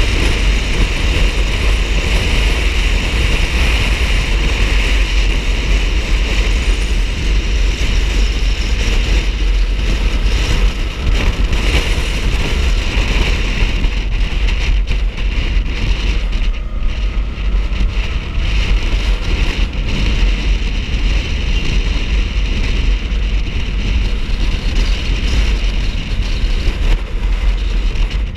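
Steady wind rush and buffeting on the microphone while a motorcycle is being ridden, with the motorcycle's engine running underneath.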